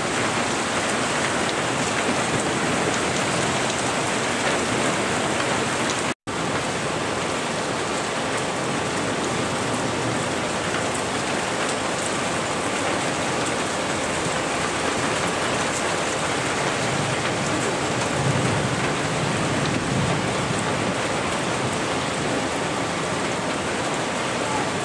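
Heavy thunderstorm rain falling steadily in a dense hiss, with a faint low rumble of thunder swelling about three-quarters of the way through. The audio drops out completely for a split second about six seconds in.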